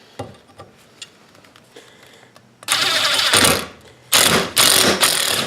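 Power drill run in two bursts of about a second each, a drill bit cutting into a piece of steel as a test of whether it can pre-drill. A few faint handling clicks come before the first burst.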